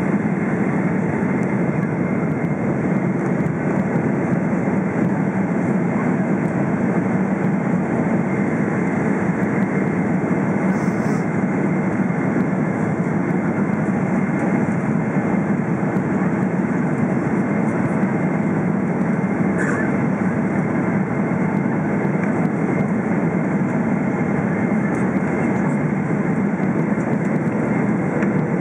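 Steady low cabin rumble inside a Boeing 777-300ER descending on approach: its GE90 engines and the rush of air past the fuselage, unchanging throughout.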